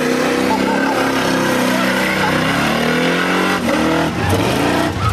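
Holden Commodore's 355 cubic-inch stroker V8 revving hard through a burnout in second gear, the revs rising and falling again and again as the rear tyres spin and smoke.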